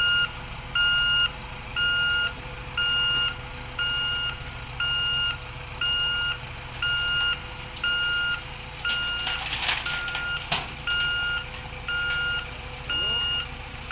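Hamm HD 99 tandem roller's travel alarm beeping at a steady single pitch about every 0.8 s while the roller drives off the trailer, over its engine running. About nine seconds in there is a brief rustling scrape that ends in a sharp clank.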